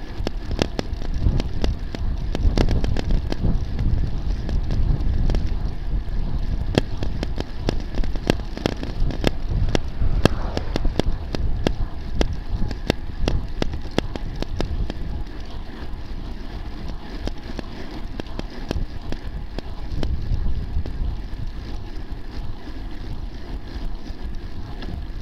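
Wind rushing over the microphone of a rear-facing camera on a moving bicycle, with tyre rumble on asphalt and frequent irregular rattling clicks. It eases off a little in the second half.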